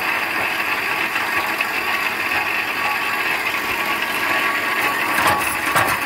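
Homemade guillotine-type shredder for small branches running steadily, its knives cutting like a mechanical secateur as grass and leaves are fed in. A few sharper clacks come about five seconds in.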